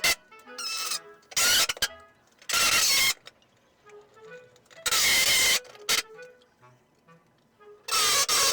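Short, loud bursts of metalwork on a Suzuki Jimny's rear body steel, each under a second, with soft background music in the gaps between them.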